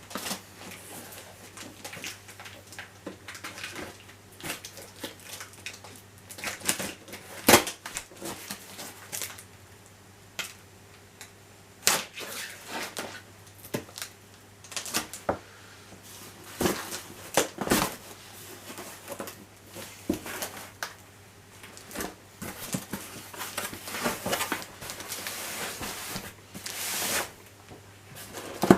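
Unpacking a soundbar and subwoofer from their box: irregular knocks, clicks and handling noises of the unit and its packaging, with a longer rustle of packing material near the end.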